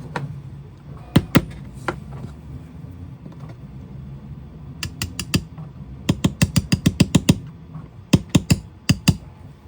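Sharp metallic taps on a Tikka T1X rifle bolt as its pin is driven back in, with a quick run of about ten taps in the middle and scattered taps before and after.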